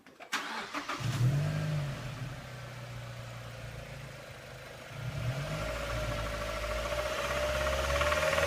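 2007 Mazda MX-5 Miata's 2.0-litre four-cylinder engine catching about a second in with a brief rise in revs, revving once more, then running with a slowly rising whine and a rattle that grows near the end, which the owner suspects is rod knock.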